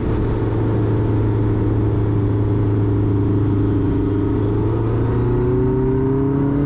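Steady drone of a light aircraft's Rotax engine and propeller in flight, its pitch creeping up slightly near the end.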